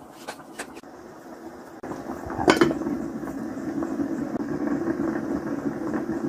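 Cooked rice tipped from a glass bowl into a pot of chicken biryani masala, with a few light clicks. Then a steady bubbling simmer of the covered biryani pot under a glass lid, with one sharp clink just after it begins.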